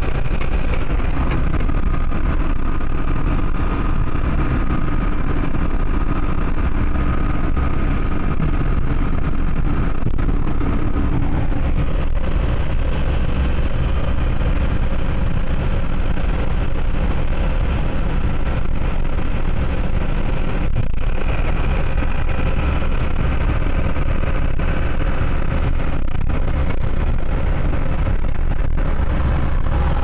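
Steady engine and road noise heard from inside a moving vehicle's cab at highway speed: a deep, unbroken rumble with a few faint steady tones above it.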